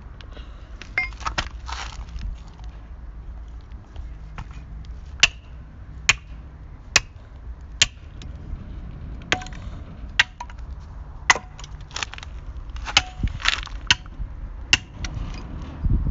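Hammer striking the broken plastic and metal parts of an internet camera: a series of sharp knocks, some with a short ringing clink, coming about once a second through the middle, over a low background rumble.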